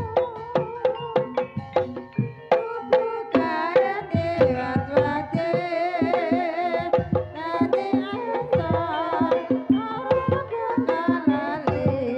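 Javanese barongan accompaniment music: rapid hand-drum strokes keep a driving rhythm under a held, wavering melody that thickens about three seconds in.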